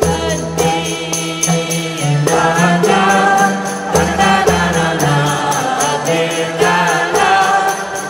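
Background music with a steady beat: jingling percussion about four times a second over bass notes and a wavering melody.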